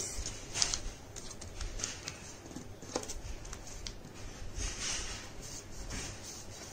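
Sheet of A4 colour paper rustling and brushing under the fingers as it is folded over and pressed flat along the crease, in faint, scattered strokes with a small tap about three seconds in.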